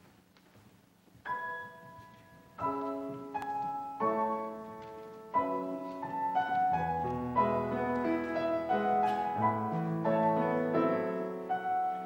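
Grand piano playing the opening of a slow choral anthem: a few single notes ring out about a second in, then the playing builds into fuller chords with low bass notes from about halfway.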